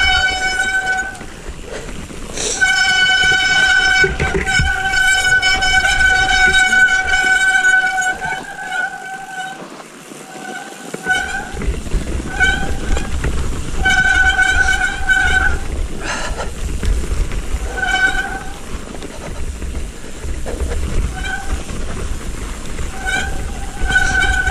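Mountain bike disc brakes squealing in a steady, high pitched tone, held for several seconds and then in shorter on-and-off squeals as the brakes are applied and released. Under it, the low rumble of wind and tyres on the helmet camera drops out for a couple of seconds near the middle.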